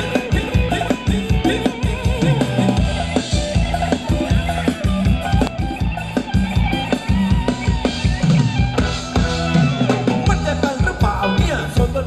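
Live band playing upbeat ramwong dance music: a drum kit keeping a fast, steady beat over a strong bass line, with melody instruments above.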